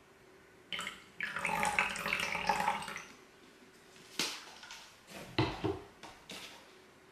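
Seasoning liquid glugging from a plastic bottle into a glass measuring cup of eggs for about two seconds. It is followed by a sharp click and a couple of knocks as bottles are handled on a wooden table.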